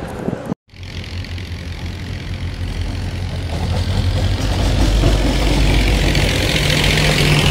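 Diesel-electric locomotive running light, its engine a steady low drone that grows louder as it draws near, with a hiss building toward the end as it passes.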